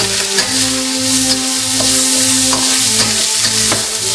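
Vegetables and beef sizzling in hot oil in a wok while a spatula stirs and scrapes them, with a few sharp clicks of the spatula against the wok. The noise of the burner's flame runs under it.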